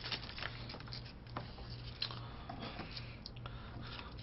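Faint rustling of paper and light clicks as small wrappers and utensils are handled, over a steady low hum.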